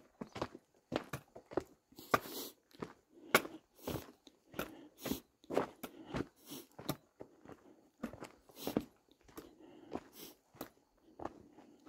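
Hiking footsteps crunching on a gritty dirt-and-rock trail, an uneven step roughly two times a second.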